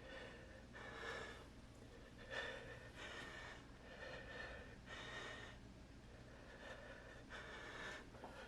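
A person breathing hard after climbing several flights of stairs, a breath in or out about every second.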